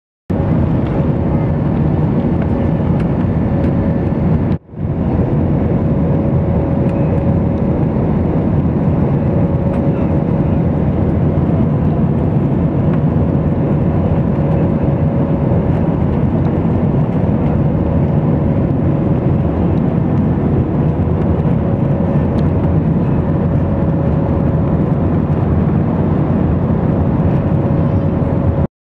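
Jet airliner cabin noise at a window seat in flight: the steady rush of the engines and the air over the fuselage, with a faint steady hum. It drops out for a moment about four and a half seconds in and comes straight back.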